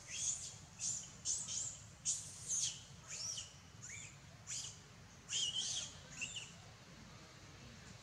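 Baby macaque giving a rapid series of short, high-pitched cries, many of them falling in pitch, which stop about six and a half seconds in.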